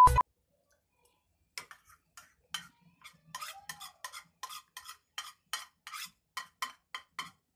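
A spoon clinking and scraping in a bowl of food as it is stirred, in quick regular taps about three a second. Just at the start, a loud steady beep cuts off.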